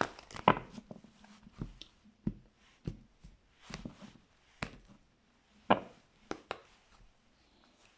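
Tarot cards being handled and shuffled on a table: irregular sharp clicks and taps of cards, the loudest just before six seconds in.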